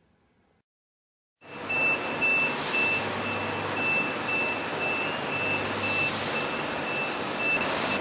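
Nilfisk T75 three-phase industrial vacuum cleaner running, a loud steady rushing noise that starts abruptly about a second and a half in. A high beep repeats about twice a second over it.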